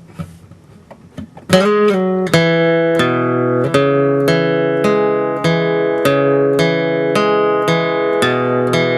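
Acoustic guitar in open D tuning with a capo on the second fret, fingerpicked. After a second and a half of faint handling clicks, a quick run of notes leads into a steady rolling picking pattern of about two notes a second, the notes ringing into each other.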